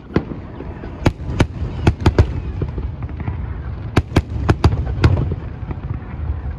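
Fireworks display: aerial shells bursting in about a dozen sharp, irregular bangs over a continuous low rumble. The bangs come in two quick clusters, one about a second in and another around four seconds in.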